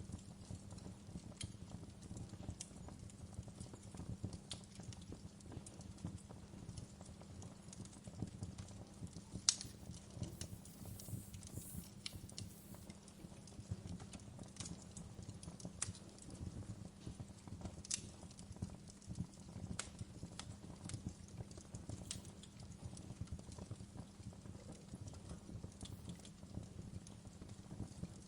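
Wood fire crackling in a fireplace: irregular sharp pops and snaps over a soft, steady low rumble.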